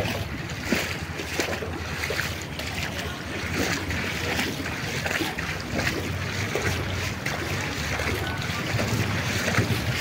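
Steady rushing noise of floodwater running across a road, mixed with wind buffeting the microphone.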